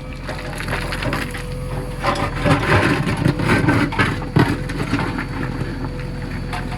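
Backhoe loader's diesel engine running steadily, with a loud stretch of crunching and cracking from about two to five seconds in.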